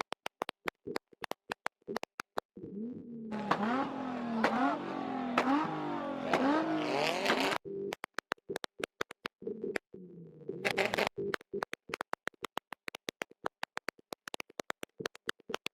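Car engine held on a two-step launch-control rev limiter, its exhaust firing rapid sharp pops and bangs. For a few seconds in the middle the engine note rises and falls repeatedly under the bangs, then the rapid crackle carries on.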